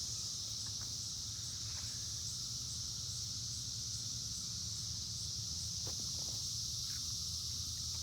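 Steady high-pitched chorus of cicadas, droning without a break.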